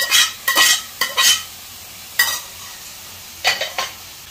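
Mutton being stirred into sizzling onion-tomato masala in a frying pan, a utensil scraping the pan in quick strokes over a steady sizzle: a cluster in the first second and a half, another at about two seconds and two more near three and a half seconds.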